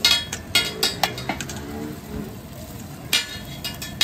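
Steel spatula striking and scraping a flat iron griddle, a handful of sharp metallic clanks, over the steady sizzle of eggs and shami kababs frying.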